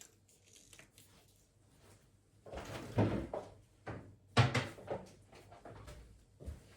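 A few household knocks and clatters, like a cupboard door and things being handled and set down. The two loudest are about three and four and a half seconds in, with smaller knocks after.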